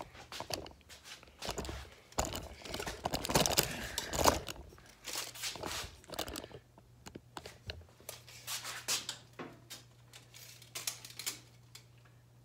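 Irregular clicks, knocks and rustling of parts and tools being handled. They come thick for the first half and thin out after about six seconds, over a low steady hum.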